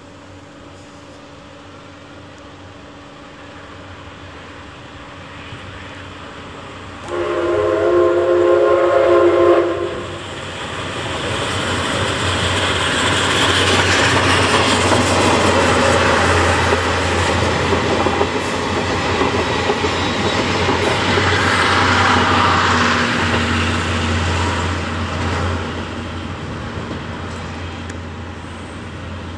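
C61 steam locomotive approaching, growing louder, then one long blast of its steam whistle, several notes sounding together for about three seconds, seven seconds in. The locomotive and its passenger coaches then run close past with a loud rolling rumble and clatter, which eases as the train draws away near the end.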